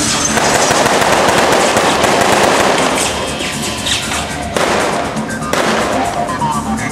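Rapid blank gunfire from a prop machine gun in two bursts: a long one, then a shorter one after a brief pause near the middle.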